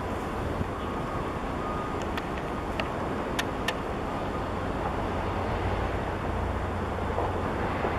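Steady low engine rumble from harbour vessels, with a few faint short clicks between about two and four seconds in.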